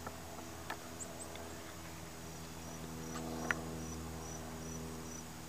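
A cricket chirping, short high chirps about two a second, setting in a couple of seconds in, over a steady low hum. A few sharp clicks come from handling.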